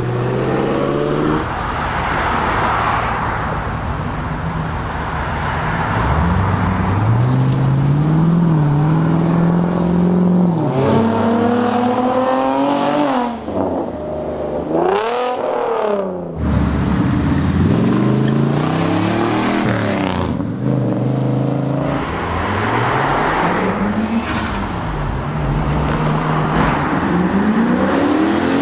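Sports and muscle cars accelerating past one after another, their engines revving up in rising pitch and dropping back at each gear change, several times over.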